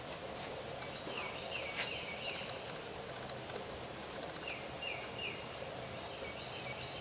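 Outdoor ambience: a small bird calling in two quick runs of short falling chirps, over a steady low hiss.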